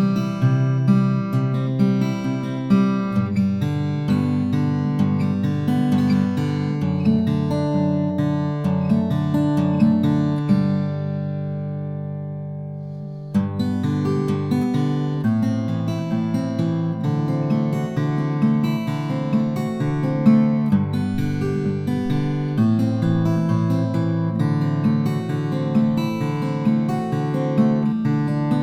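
Martin 0012-28 acoustic guitar being fingerpicked: a steady flow of plucked notes and bass lines. About halfway through, a chord is left to ring out and fade for a few seconds before the picking starts again.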